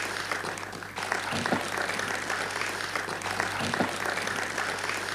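Audience applauding, a dense even clatter of many hands that dips briefly about a second in, over a low steady electrical hum.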